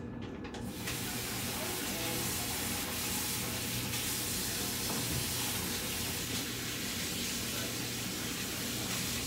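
Kitchen faucet running into the sink while hands are washed: a steady rush of water that comes on about a second in and cuts off near the end.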